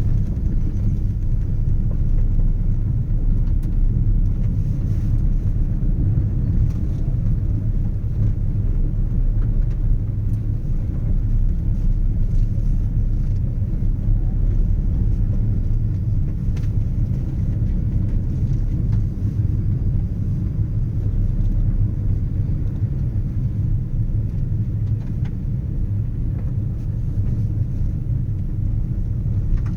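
Steady low rumble of a vehicle driving along, engine and road noise with no change in pace.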